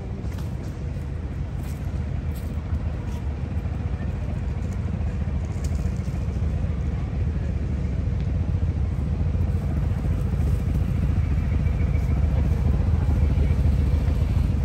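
Low, steady rumble of city street traffic that slowly grows louder.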